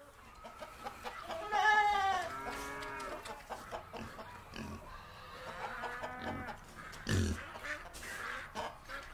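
Poultry clucking: a string of short pitched calls, the loudest about a second and a half in, with more calls around three and six seconds in, over faint scattered clicks.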